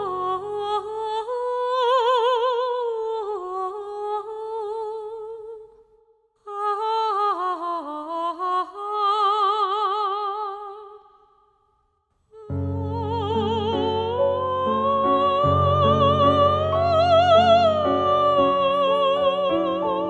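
A woman singing long, slow phrases with a wide vibrato, unaccompanied at first and pausing briefly twice. About twelve seconds in, an instrumental accompaniment of sustained low notes comes in under her voice.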